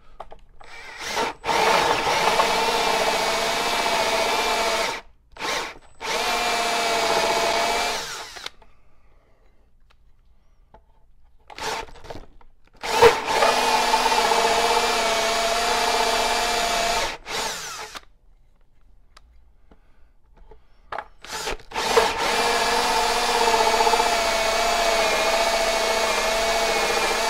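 Milwaukee cordless drill spinning a 2 1/8-inch Drill Hog hole saw into wood, with a steady motor whine. It runs in three spells of several seconds each, with short pauses between them where the cut is stopped to clear out shavings.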